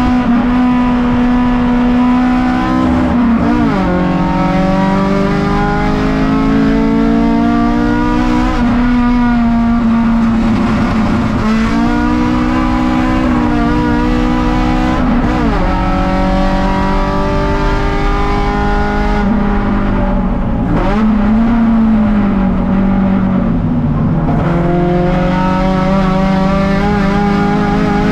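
Race car's four-cylinder 4A-GE engine heard from inside the stripped cabin, pulling hard on track. Its pitch climbs and falls several times as it is shifted through the gears and braked for corners.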